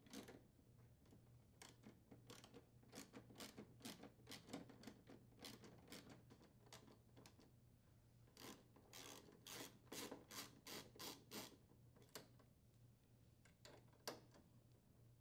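Hand ratchet with a 1/4 inch socket clicking faintly as it backs out the screws that secure a refrigerator's front wheel adjuster assembly. The clicks come in two quick runs of a few seconds each, with one sharper click near the end.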